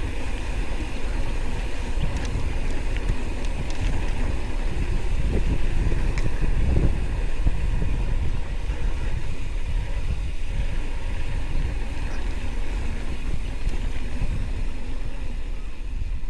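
Wind buffeting the microphone while moving, a continuous low rumble that swells for a few seconds in the middle, with a steady faint high buzz.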